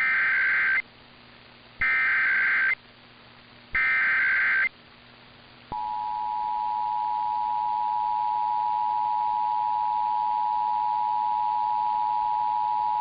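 Emergency Alert System test signal: the SAME header, three short screeching bursts of data tones about a second apart, followed about six seconds in by the steady two-tone EAS attention signal.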